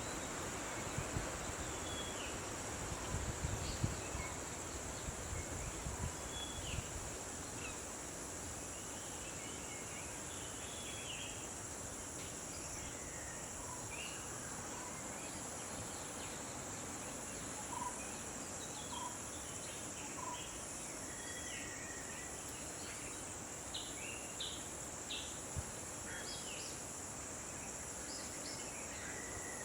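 Wild outdoor ambience: a steady high-pitched insect drone of crickets or cicadas, with short bird chirps scattered through. Low thuds and rumbles come during the first several seconds.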